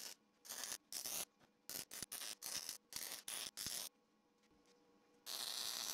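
MIG welder arc crackling in about ten short bursts, stopping and starting as tack welds go onto steel plate; after a pause, a longer burst of welding near the end.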